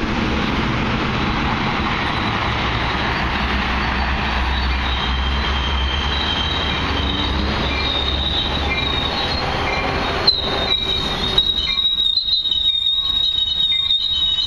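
NJ Transit commuter train, cab car leading, rolling into the station with a steady rumble. About ten seconds in a high, steady squeal sets in from the wheels as the cars pass slowly, with a couple of sharp clicks.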